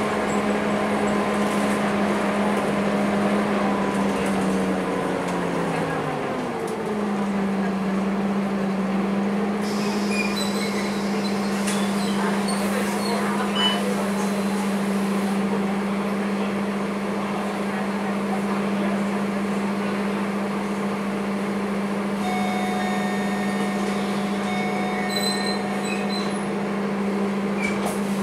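Interior of a Scania K230UB single-deck bus: the engine hum drops in pitch as the bus slows into a stop about six seconds in, then holds a steady note with the engine idling while the bus stands at the stop. A pitched tone sounds for a few seconds near the end.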